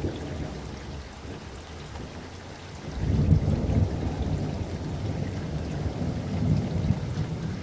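Steady rushing water noise, with a deep rumble that swells in about three seconds in and holds.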